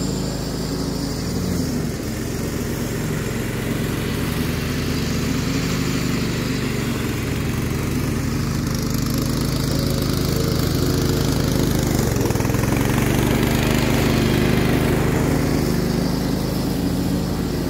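Scotts riding lawn tractor's engine running steadily under mowing load, without missing or bogging, after its carburetor cleaning, oil change, new spark plug and air filter. It grows a little louder after about twelve seconds as the tractor comes back closer.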